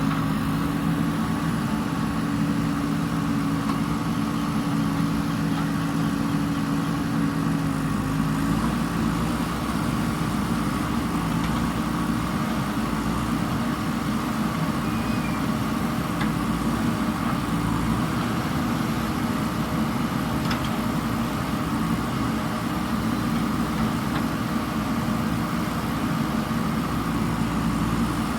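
Diesel engine of a JCB backhoe loader running steadily, its note shifting slightly about eight seconds in.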